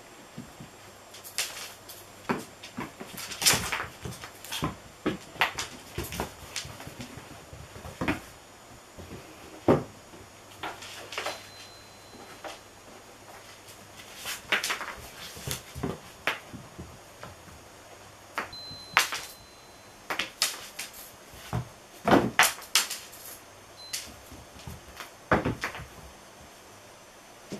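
Cats leaping, landing and scrabbling on a wooden floor while chasing a wand toy: irregular sharp knocks and taps, a few of them louder.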